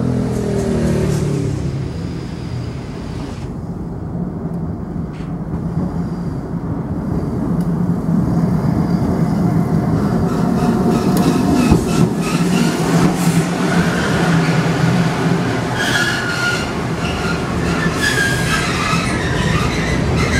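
Keifuku Electric Railroad (Randen) Mobo 611-series tram approaching and pulling into a station, its motors and wheels running on the rails. In the second half it brakes to a stop, with repeated high wheel and brake squeals.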